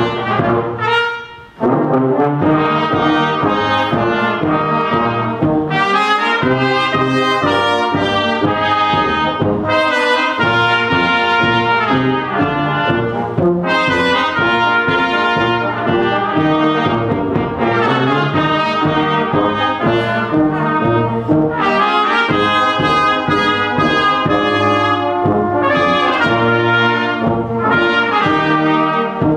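A children's brass band of tubas, tenor horns and cornets playing a piece together in harmony, with a short break between phrases about a second in.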